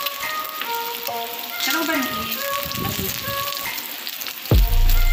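Pork belly slices sizzling on a grill pan, a steady hiss, with background music playing over it; a deep bass boom comes in near the end and is the loudest sound.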